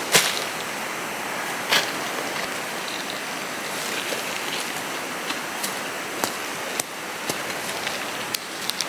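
Steady rain, with a scattered handful of sharp taps; the loudest comes just after the start and another about two seconds in.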